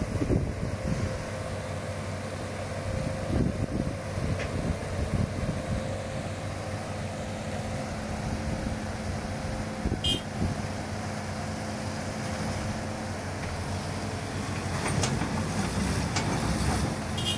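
Diesel engines of a hydraulic excavator and a small truck running steadily while the excavator's bucket pushes the truck through the river. The engine noise swells for a couple of seconds near the end, and a few short sharp clicks sound in the middle and near the end.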